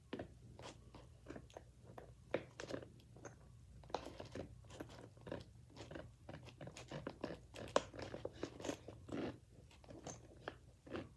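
Zipper on a bag of fidget toys being pulled slowly, in short irregular crunchy clicks and scrapes.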